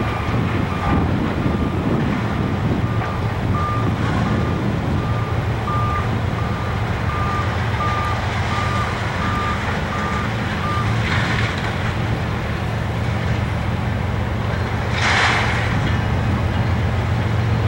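A vehicle's reversing alarm beeping evenly, a little faster than once a second, over a steady low engine rumble. The beeping stops about eleven seconds in, and two short hisses follow, about eleven and fifteen seconds in.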